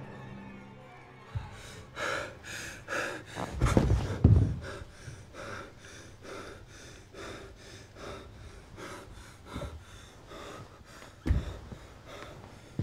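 A man panting hard, quick ragged breaths and gasps about two to three a second. Heavy low thuds come about four seconds in and again near the end.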